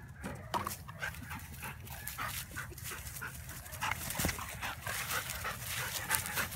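Belgian Malinois panting, mixed with short irregular rustling noises.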